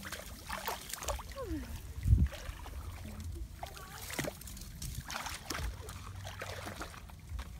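Shallow paddy water splashing and trickling as small fish are lifted out of it on a bundle of baited hook lines, with scattered light clicks and a single low thump about two seconds in.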